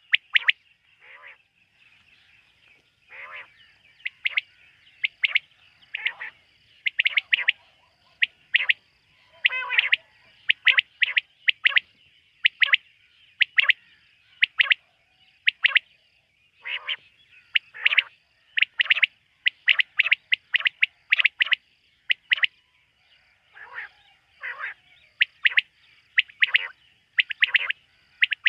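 Quail calling at night: short, sharp calls repeated over and over, often in quick groups of two or three, with a faint high steady pulsing behind them.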